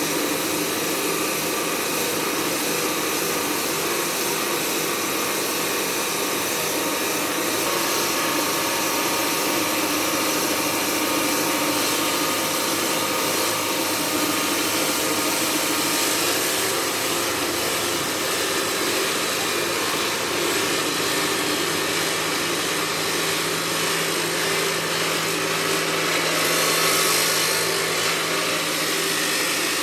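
Stone-working machinery in a marble factory running steadily: a dense, even hiss with a faint hum underneath, swelling slightly near the end.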